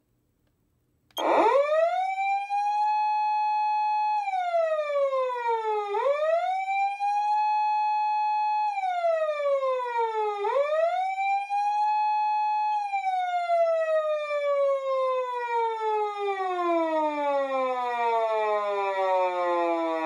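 PATLITE SAP-500BWZ-G electronic siren amplifier sounding the Japanese police-car emergency wail in its 4-second-cycle mode: the tone starts about a second in, rises quickly, holds high for a couple of seconds, then falls, repeating about every four and a half seconds. About two-thirds of the way through it goes into a long, slow downward glide.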